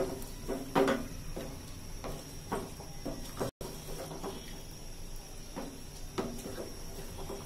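Wooden spatula stirring a thick, chunky chicken and bottle gourd curry in a metal pot, with irregular scrapes and knocks against the pot's side, the loudest a little under a second in. The sound cuts out for a moment about halfway.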